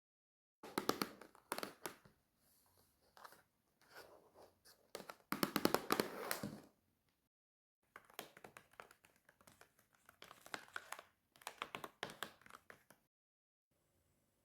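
Close-miked mukbang eating and food-handling sounds: several short bursts of crisp clicking and crackling, the loudest about five to six and a half seconds in, with quiet gaps between them.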